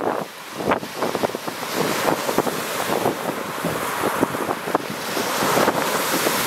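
Lake Superior waves breaking and washing over a rocky, pebbly shore, with wind buffeting the microphone.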